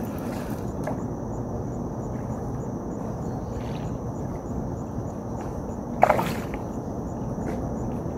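Steady low rushing background noise at a riverbank, with one short, sharp sound about six seconds in.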